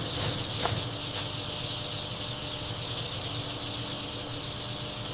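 Dense chorus of many day-old chicks peeping at once, over a steady low hum.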